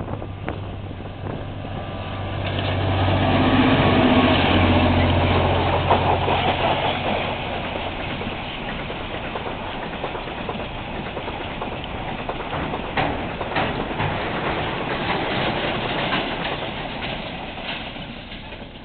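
Two GM diesel-electric locomotives pulling a container freight train pass close by, their engines loudest about four seconds in. The container wagons then roll past with wheels clicking over the rail joints, fading near the end.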